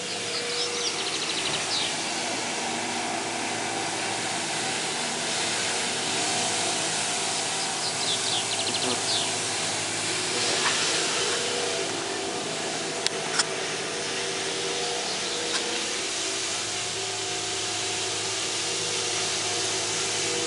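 Biplane's propeller engine droning steadily overhead, several held tones under an even hiss. Birds chirp briefly near the start and again about eight seconds in.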